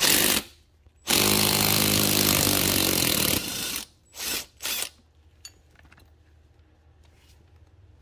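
Cordless power tool with a deep socket spinning a nut off the threaded end of a steering rack's inner tie rod. There is a short burst at the start, then about two seconds of steady running with a motor whine that drops off and stops, then two brief bursts.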